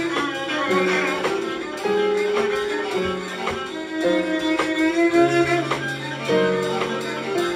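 Live improvised trio music. A Korean zither's notes waver and bend in pitch over steady held low notes that change every second or so, with light struck attacks between them.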